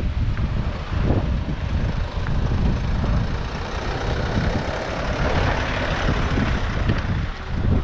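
A motor vehicle passing on a street; its hiss swells about four seconds in and fades near the end. Wind rumbles on the microphone throughout.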